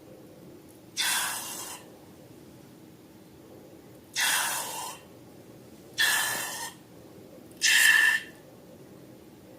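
Air rushing out of a balloon's neck four times in short bursts, each under a second, the last two with a faint squeal in them.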